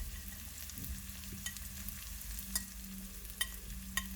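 Tempering (thalippu) of chopped onion, garlic, green chillies, mustard, cumin and fennel seeds sizzling in hot oil in a pan, with scattered sharp pops and crackles from the seeds.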